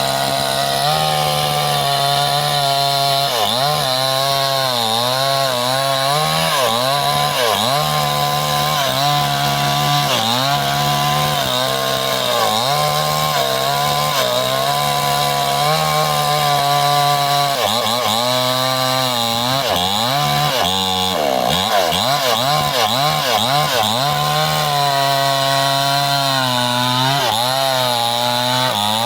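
Stihl chainsaw cutting through bendo wood, running loud and steady at high revs. Its engine pitch dips and recovers again and again as the chain bogs down under load in the cut.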